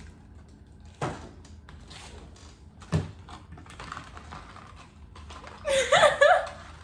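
Light scattered clicks and taps of objects being handled, with two sharper knocks about one and three seconds in, and a short vocal sound near the end.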